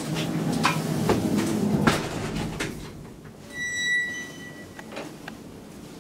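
Elevator car doors sliding shut with clicks and a low rumble. About three and a half seconds in, a single short electronic chime tone sounds in the car.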